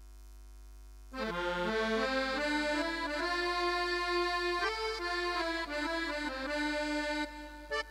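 Roland XPS-10 keyboard playing a melody of long held notes on a voice from a luk thung–mor lam sample set. The notes come in about a second in, sliding up at the start.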